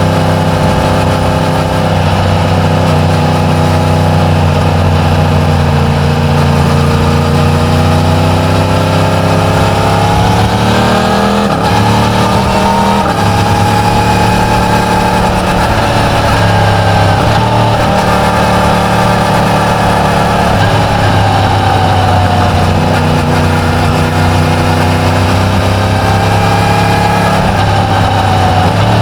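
Yamaha MT-10's crossplane inline-four engine running through its stock exhaust while riding. The revs climb about a third of the way in, hold, then ease off twice later on.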